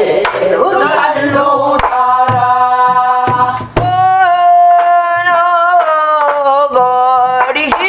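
A woman singing a Korean Namdo folk song's drawn-out 'a-ha-a-a … eogiya' refrain, holding long notes with a wide vibrato in the second half. Sharp strokes of a stick on a buk barrel drum accompany her.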